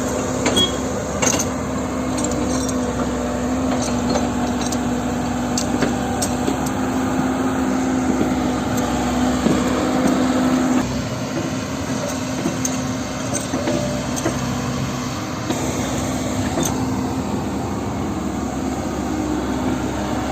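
Diesel engines of heavy machinery running steadily under work, with a steady hum and scattered sharp knocks; the low rumble drops away about eleven seconds in.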